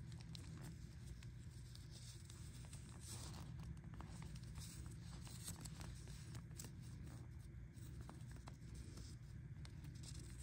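Faint handling noise: small crinkles and rustles of a clear plastic bag and a folded paper geocache log strip being unfolded in gloved fingers, over a steady low hum.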